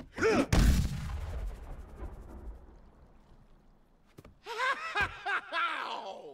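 A cartoon punch sound effect: a sharp, heavy hit with a deep boom that fades away over a few seconds, landing on an arm as hard as ironwood. About four seconds later come the panda's high, wavering whimpers of pain from his hurt paw.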